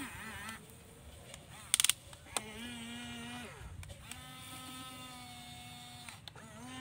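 Small electric gear motors of a toy remote-control XCMG excavator whining as it swings and moves its boom and arm, in two steady runs that each wind down as they stop. A brief burst of loud clicking comes just before the first run.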